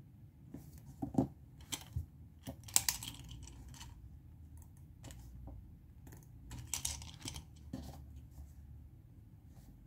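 Stationery being handled on a desk: a scattering of small clicks and taps as pens and a chunky grey tool are picked up, put down and pressed on the worksheet. The clicks come in two busy spells, about one to three seconds in and again around seven seconds in, over a faint low hum.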